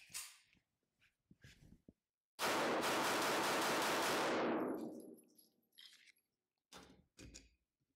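Walther PK380 .380 ACP pistol fired in a rapid string for about two seconds, the shots blurring into one flat burst that trails off in a fading ring, with a few faint handling clicks before and after.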